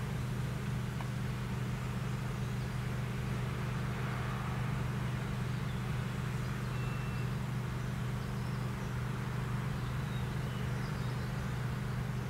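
Stadler GTW diesel multiple unit idling while standing at a platform: a steady low engine hum.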